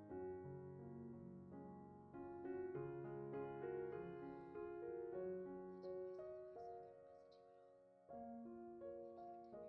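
Soft background piano music, a slow melody of held notes.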